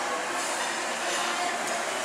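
Shopping-mall ambience: a steady wash of background noise with the indistinct voices of passers-by.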